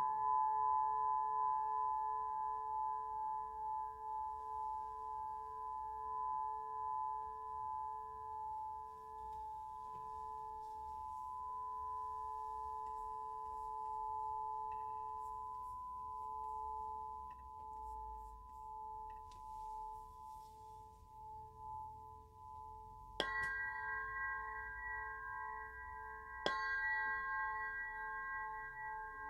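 Clear crystal singing pyramid hung from a cord, ringing with several steady pure tones that pulse slowly as they fade. It is struck twice near the end, about three seconds apart, and each strike brings a bright new ring.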